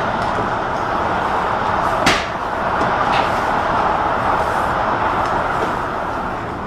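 Loading machinery running steadily while rolls are handled at the open side of a curtainsider trailer, with a sharp knock about two seconds in and a lighter knock about a second later.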